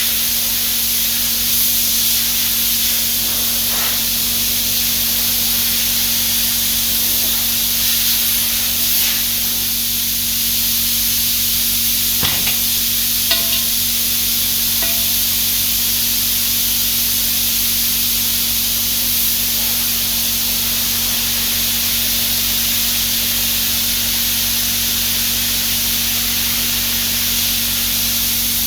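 E61 espresso machine hissing steadily over a low hum, with a couple of small clicks near the middle.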